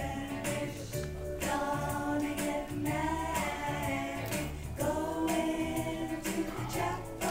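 Music with singing voices: slow, long-held notes over a steady bass line.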